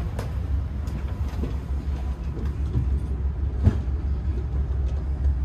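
Steady low rumble inside an Amtrak Superliner railcar, with scattered light knocks and one sharper knock about three and a half seconds in.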